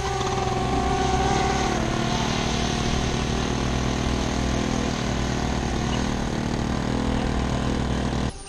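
Motors and propellers of a twin-rotor VTOL RC plane running steadily as it lifts off vertically and climbs away. The pitch steps down about two seconds in, and the sound cuts off suddenly near the end.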